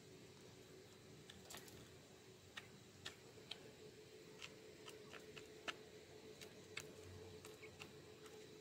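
Quail pecking at mash in a feed trough: faint, sharp, irregular ticks, a couple a second, over a faint steady hum.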